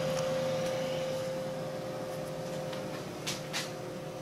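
Steady electrical hum with one constant mid-pitched tone from a Tormach PCNC 1100 mill's control cabinet just powered up, its stepper motor drivers energised. It fades slightly, and two light clicks come a little over three seconds in.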